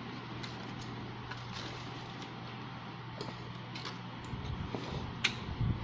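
Small clicks and soft knocks of food being handled at the table, over a steady low hum, with a few low thumps and one sharp click near the end.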